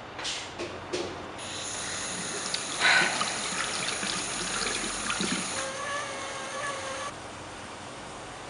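A few footsteps on a tiled floor, then a washroom tap running into a sink. Water splashes loudly about three seconds in as it is scooped up to the face. A brief whistling tone sounds before the flow stops about seven seconds in.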